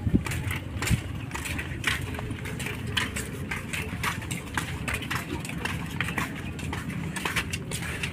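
Footsteps of several people walking in flip-flops on a concrete path: a steady run of light slaps, about two or three a second, over a low rumble on the microphone.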